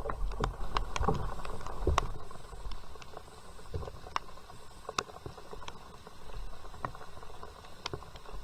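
Scattered water drops plinking and splashing around a kayak at an irregular pace, over a low rumble.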